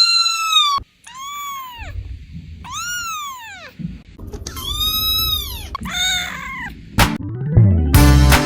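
A kitten meowing over and over: about five high-pitched meows in a row, each rising and then falling in pitch. Music with a beat starts near the end.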